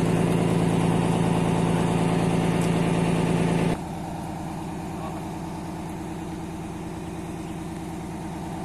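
Fire truck engine idling steadily. Its level drops suddenly a little under four seconds in, then it runs on quieter.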